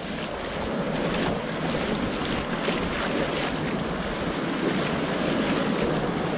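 Shallow surf washing in and out close to the microphone, a steady rush that swells over the first second, with wind on the microphone.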